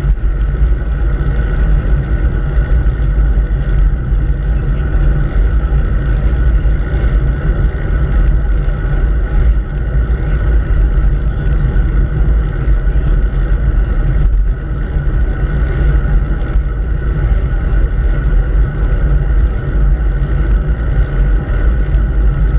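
Wind buffeting the microphone of a handlebar-mounted action camera on a moving bicycle: a loud, steady, deep rumble.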